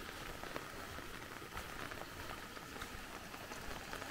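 Faint, steady trickling and bubbling of muddy rain runoff flowing along an earth channel into a swale, with scattered small ticks.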